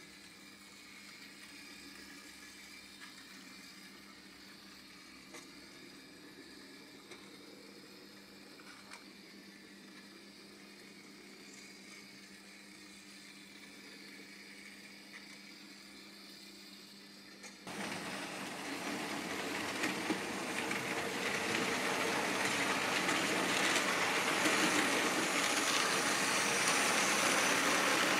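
A faint steady hum, then, over the last ten seconds, the rumble of an H0 model freight train of hopper wagons running on the track, growing louder as it passes close.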